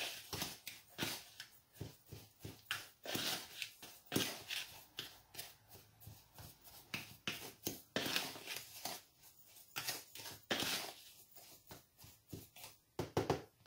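A utensil stirring and scraping a dry mix of washing soda, baking soda and coarse salt in a bowl, breaking up the lumps: a quick, irregular run of gritty scrapes and small clicks.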